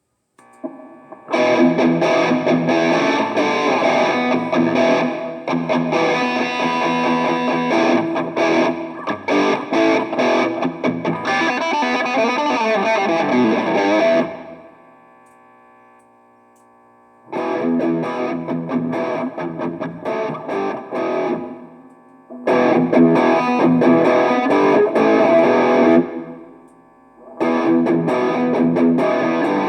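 Electric guitar played through the Arcano Metal End distortion pedal into an amp: heavily distorted riffs in several passages, with short breaks where the playing stops and only faint ringing is left. The riffs demonstrate the pedal's tone and switch settings.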